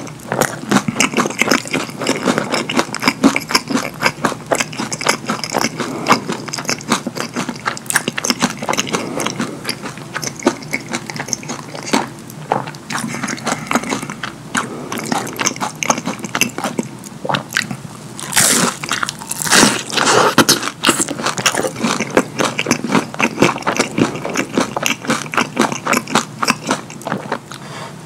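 Close-up mouth eating sounds: crunchy biting and wet, smacking chewing of a crispy hash brown and cheese-sauce-dipped chicken nuggets, a dense run of rapid clicks and crunches, with a louder, longer wet stretch about twenty seconds in.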